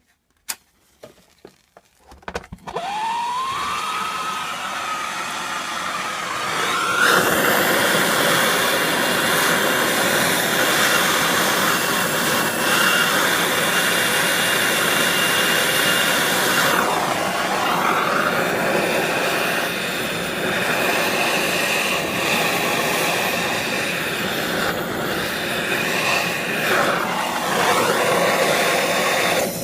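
A hand-held gas torch relit after a few clicks, catching with a short rising whistle and then burning with a steady loud hiss that gets louder about seven seconds in, its whistling tone shifting a few times.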